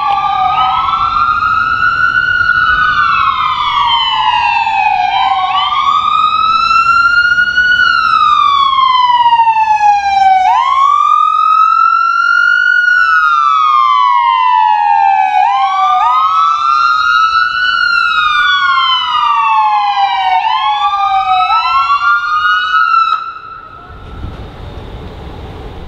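Emergency vehicle sirens wailing, two overlapping wails slightly out of step, each rising and falling slowly about every five seconds. They cut off abruptly near the end, leaving a low rumble.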